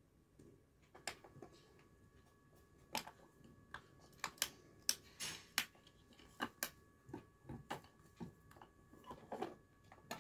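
Light clicks and taps of small plastic and metal miniature kitchen pieces being handled: a tiny steel pot set on a toy stove, and a toy fridge door opened and clicked shut. The taps come irregularly, busiest in the middle.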